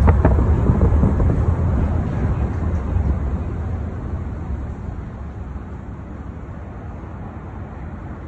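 Low rumble of a car's road and engine noise heard from inside the cabin, fading over the first few seconds as the car slows to a stop.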